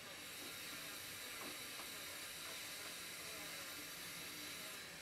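Faint steady hiss, with a couple of very soft ticks.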